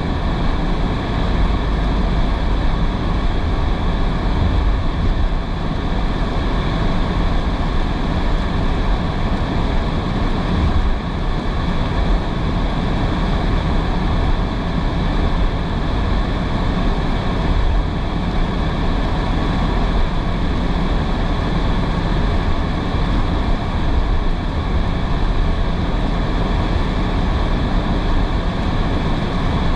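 Car driving on a rain-soaked road: steady tyre and road noise with a deep rumble, mixed with the wash of rain and spray.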